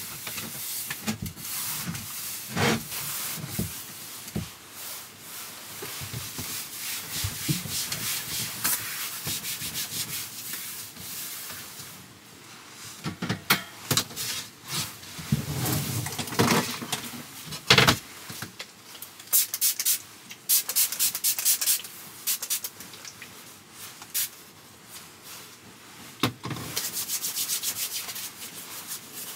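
Close rubbing and rustling noises with scattered clicks and knocks, as of things being handled and wiped.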